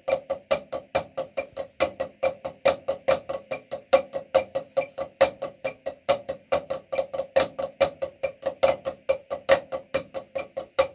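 Drumsticks striking an octagonal drum practice pad, two players in unison doing Moeller-technique hand exercises: an even stream of crisp stick strokes, several a second, with some strokes accented louder than the rest.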